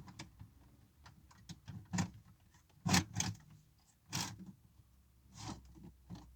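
Irregular clicks and knocks of hands handling small hard parts and the radio unit, several separate knocks with the loudest about three seconds in.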